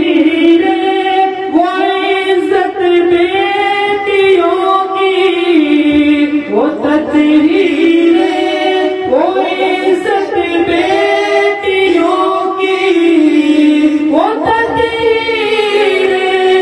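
A man singing a devotional Urdu naat unaccompanied into a handheld microphone, drawing out long, ornamented held notes with rising slides into each new phrase.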